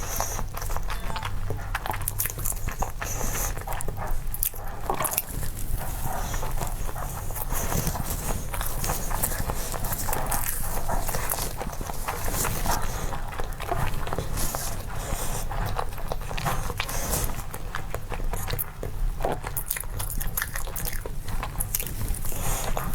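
Close-miked chewing of a pork floss snack: dense, irregular wet clicks and crackles of mouth and food sounds, going on without a break.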